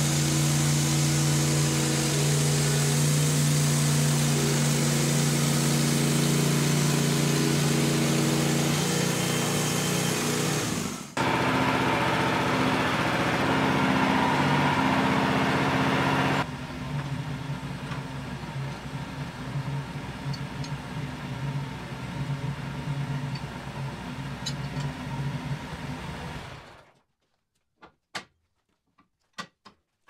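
Wood-Mizer LX55 portable bandsaw mill running, its engine under load with the band blade cutting through a rotten pine log. Partway through it drops to a quieter run, and near the end it stops, followed by a few sharp knocks as the log is handled.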